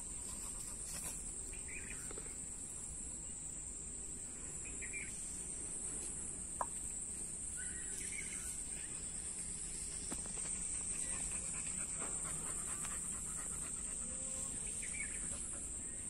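Steady, high-pitched drone of insects such as crickets, with short bird calls every few seconds and a single sharp click a little past the middle.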